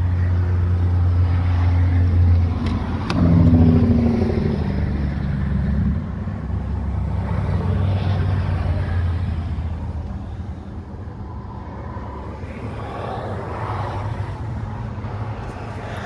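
Diesel truck engine idling with a steady low rumble. There is a sharp latch click about three seconds in as the cab door opens, and the rumble grows quieter from about ten seconds in, once inside the cab.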